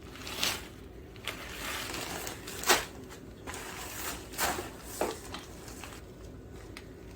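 Oyster crackers being mixed with seasoned oil: five or so short rustling, rattling sweeps at irregular intervals, the loudest about two and a half seconds in.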